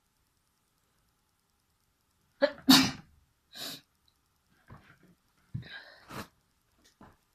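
A person's sneeze about two and a half seconds in: a short catch of breath, then one loud burst, set off by a tissue poked into the nose. Several softer breathy sounds follow.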